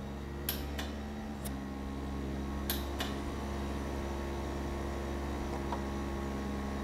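Steady electrical hum of laboratory equipment, with a few light metallic clicks in the first three seconds as tweezers set a small sealed aluminium sample pan into the calorimeter's sample cell.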